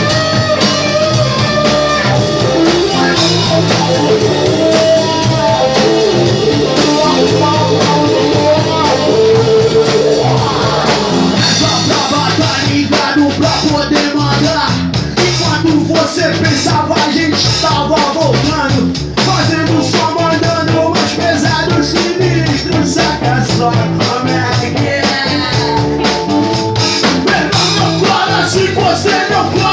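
Rock band playing live: drum kit, bass and electric guitar. A rising slide comes in near the middle, and after it the drumming gets busier with more cymbal hits.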